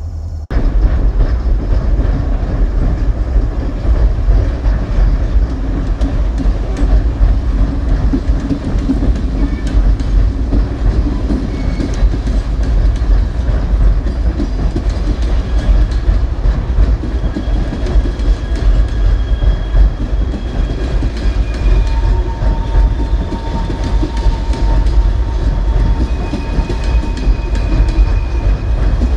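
Railroad cars rolling past with a heavy rumble and a steady clickety-clack of wheels over rail joints. Faint, thin wheel squeals come and go in the second half.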